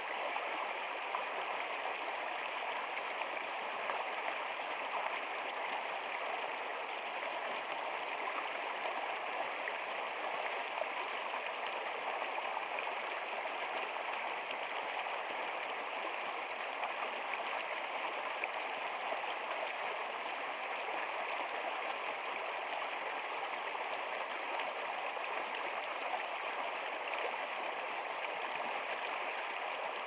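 Shallow stream running over rocks, with water spilling over a boulder into a pool: a steady, even rush of water.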